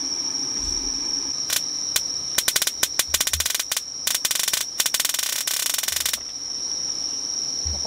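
Electric fly-swatter racket zapping an insect: two sharp snaps about a second and a half in, then rapid crackling bursts of arcing that stop about six seconds in. A steady high insect trill goes on underneath.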